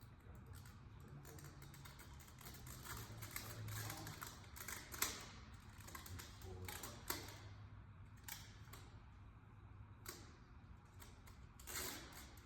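Thick plastic security film crackling and clicking as it is handled against wet window glass, a faint irregular patter with sharper snaps about five and seven seconds in.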